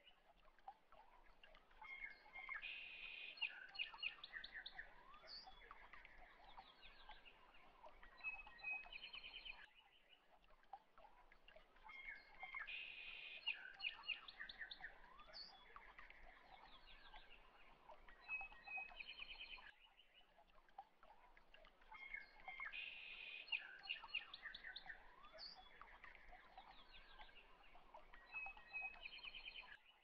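Faint background birdsong, chirps and short trills, from a recording that loops about every ten seconds.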